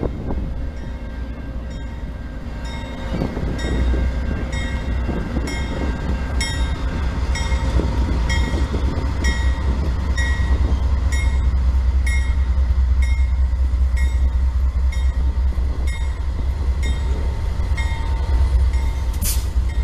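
A Canadian National freight train's diesel locomotives pass close by, their engine rumble building as the lead units arrive. Over it a bell rings in quick, even strikes, about two to three a second, typical of a locomotive bell. A single sharp click comes near the end.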